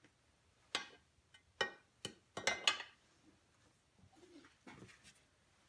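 Metal chain guard being fitted over a mill's motor and chain drive: a series of light metal knocks and clanks, some ringing briefly, in the first three seconds, then a few faint handling sounds.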